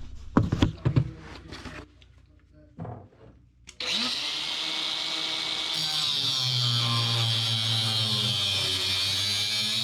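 A few knocks of handling in the first second. Then, about four seconds in, an angle grinder starts abruptly and runs steadily, cutting into a carbon-steel press-fit heating pipe.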